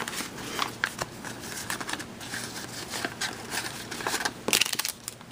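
Paper and cardstock rustling and crinkling as hands handle a decorated paper bag card and its tags, with scattered small clicks and a louder rustle about four and a half seconds in.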